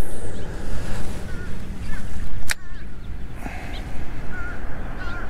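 A fishing rod swung in a cast with a jig, then a single sharp click about two and a half seconds in. A steady low rumble of wind on the microphone runs underneath, and small birds chirp faintly.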